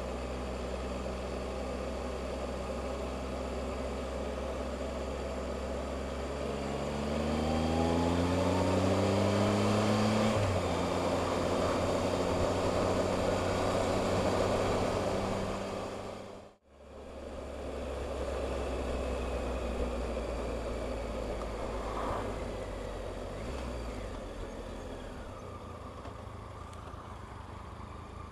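Motorcycle engine idling, then pulling away about six seconds in, its pitch rising for a few seconds up to a gear change, with wind and road noise building as it gathers speed. The sound cuts out abruptly about halfway through, then the bike is heard running steadily again, a little quieter near the end.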